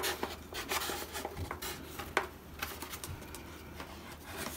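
Foam wing of an RC model airplane being set down and seated onto the foam fuselage, with light rubbing and scattered small clicks and knocks as the parts and wire leads settle into place.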